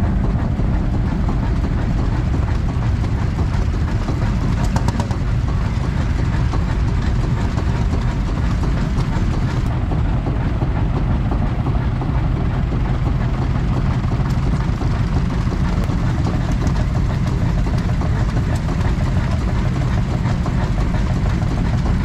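Engines of vintage tractors and an old lorry running at low revs as they drive slowly past in a line, a steady deep rumble.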